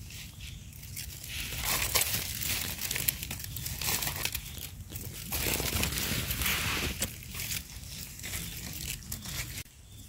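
Crinkling and crunching of dry leaf litter and forest debris, with frequent small snaps, as mushrooms are picked from the forest floor.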